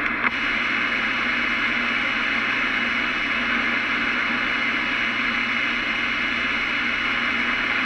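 CB radio receiver static: a steady band-limited hiss from the open squelch between transmissions, with a single click just after the start.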